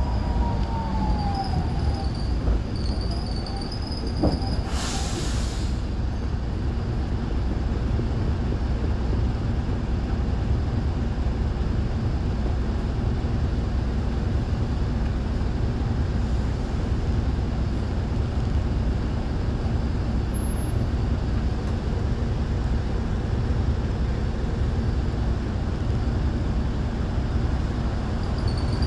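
Interior of an Optare Solo M920 single-deck bus: the diesel engine runs steadily, first as the bus draws up and then while it waits at a stop. A falling squeal comes in the first two seconds, and a short hiss of air, typical of the air brakes, comes about five seconds in.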